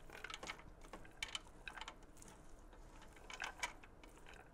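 Spatula stirring frozen corn kernels in a stainless steel stockpot: faint, irregular clicks and scrapes of the kernels and utensil against the pot.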